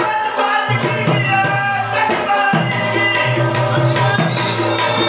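Tabla and rabab playing a lively folk tune together: quick hand strokes on the tabla, with deep ringing bass notes from the larger drum, under the plucked melody of the rabab.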